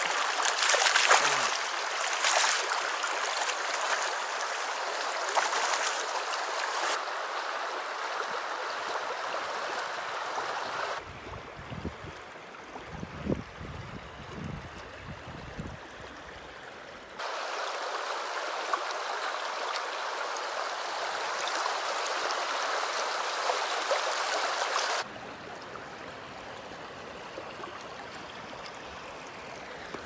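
Shallow stream rushing over stones, a steady water noise that changes level abruptly several times where clips are joined. In a quieter stretch midway there are a few low knocks.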